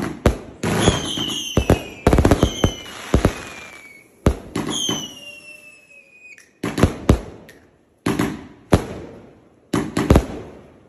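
Aerial fireworks going off: a rapid string of sharp bangs and crackle, with several whistles that glide down in pitch. The bangs thin out to a few single reports after about four seconds.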